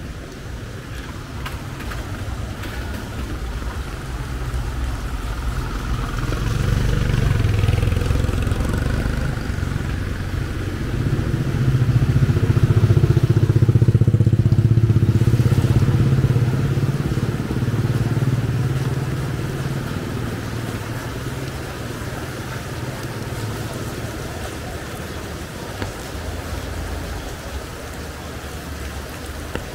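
Motor vehicle traffic passing close by on a street: engine noise builds, is loudest about halfway through, then fades away.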